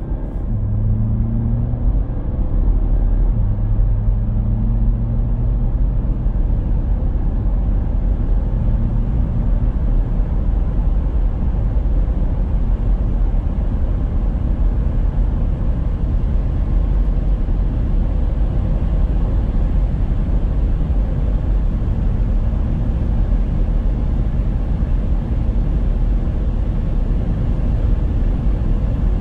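Cabin sound of a 2024 Mercedes-Benz GLC 300 de diesel plug-in hybrid under hard acceleration, its four-cylinder diesel pulling through automatic upshifts. Wind and tyre noise keeps building as the car climbs to its electronically limited 218 km/h.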